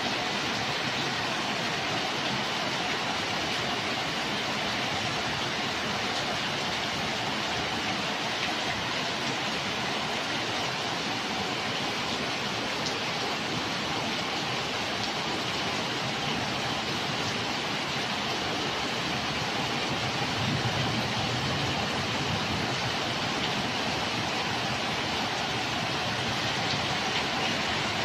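Heavy thunderstorm rain pouring steadily, with water streaming off a roof edge. A brief low rumble comes about two-thirds of the way through.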